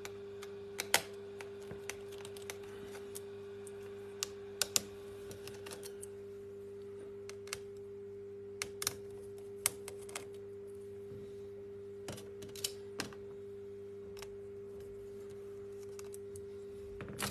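Scattered small clicks and taps of hands and tools on a laptop's plastic lid and screen panel as the screen is worked loose, over a steady electrical hum.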